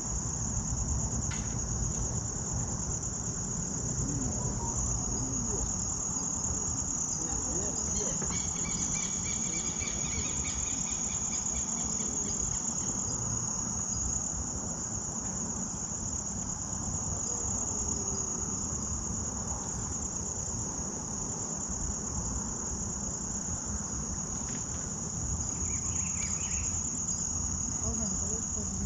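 Insects singing in a steady, high-pitched, unbroken shrill, over a low rumble.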